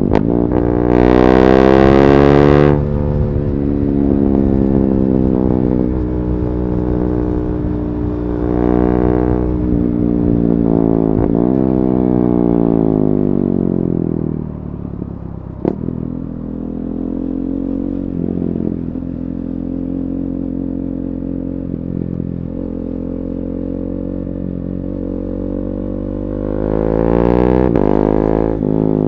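KTM 390 Duke's single-cylinder engine running through an Akrapovic slip-on exhaust with a decat pipe. The revs rise and fall several times, climbing sharply near the start and again near the end, with a steadier, lower stretch in the middle and a single click about halfway.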